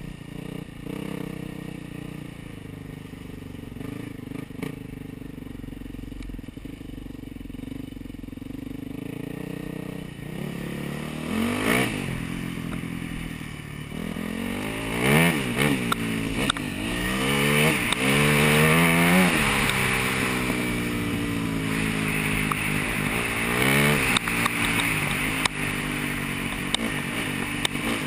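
Yamaha YZ400F four-stroke single-cylinder dirt bike engine, heard from the rider's helmet. It runs at low revs for about the first ten seconds, then is revved up and eased off again and again as the bike picks up speed, loudest in the middle, before settling near the end.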